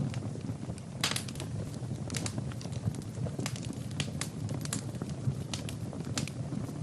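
Wood fire crackling in a fireplace: irregular sharp pops and snaps over a steady low rumble of burning, with a louder pop about a second in.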